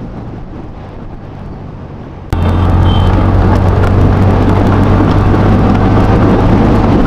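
TVS Ntorq 125 scooter's single-cylinder engine running under way, heard from a helmet-mounted microphone with a steady rush. A little over two seconds in the sound jumps abruptly much louder and holds steady.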